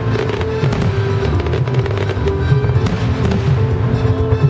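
Music with a held, stepping melody over a strong bass, mixed with repeated sharp bangs of aerial fireworks bursting.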